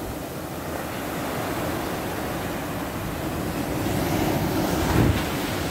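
Ocean surf breaking and washing up a sandy beach, a steady rushing that swells louder toward a wave crash about five seconds in.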